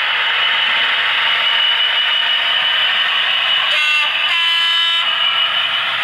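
A DCC sound-fitted model diesel locomotive's two-tone horn, a short note and then a longer one at a different pitch about four seconds in. Under it runs the steady hiss and thin whine of the model's small speaker and motor.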